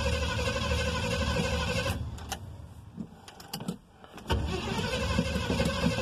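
An old GM pickup's engine idling, heard from inside the cab; about two seconds in it dies away, there are a few clicks, and just past four seconds it starts running again. The owner suspects a blown motor, with oil in the radiator.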